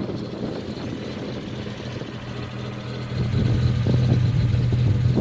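Unimog 404's petrol inline-six engine running steadily under way, getting louder about three seconds in.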